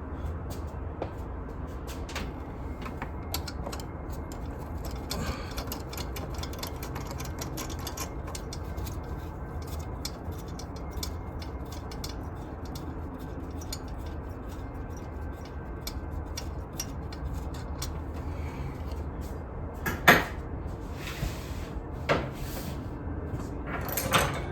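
Hand tools working on the bolts of a Mustang 3.8 V6's upper intake plenum: scattered light clicks and ticks of metal on metal over a steady low hum, then three louder knocks near the end.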